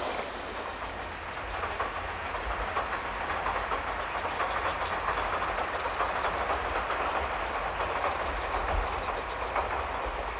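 Diesel railcar running along the line at a distance, its wheels clicking over the rail joints over a steady rushing noise.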